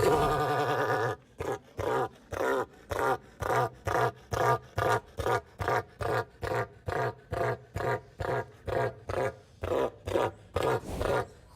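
Southern cassowary calling: one long deep call, then a long run of short, evenly spaced pulsed calls at about three a second.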